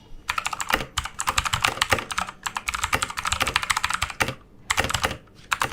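Redragon K552 Kumara mechanical keyboard being typed on quickly: a fast, dense run of key clicks, with a brief pause a little past four seconds in before the typing resumes.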